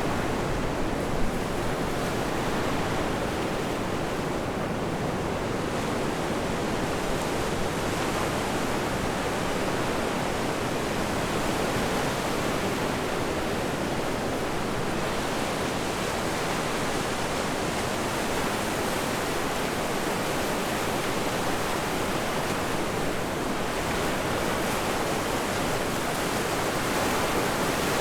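Steady wash of ocean surf mixed with wind buffeting the microphone on a blustery beach, with one short knock about a second in.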